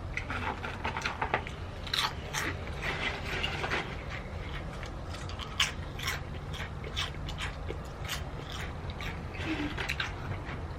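A person chewing and crunching food close to the microphone, with many short crisp crunches scattered through, over a low steady hum.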